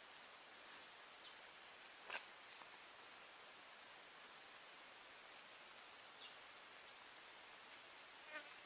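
Faint outdoor ambience: a steady soft hiss with a few faint, short high chirps and two brief soft clicks, one about two seconds in and one near the end.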